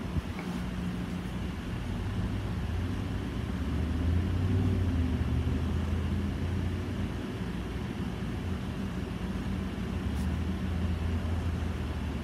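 Steady low mechanical hum or rumble, swelling a few seconds in and again near the end, with one faint click about ten seconds in.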